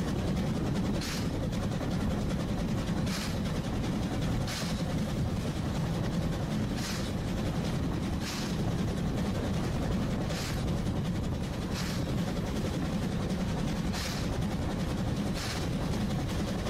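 Oigawa Railway train running steadily along the line: a constant low rumble, with short sharp clacks coming in pairs about a second and a half apart, each pair repeating roughly every three and a half seconds.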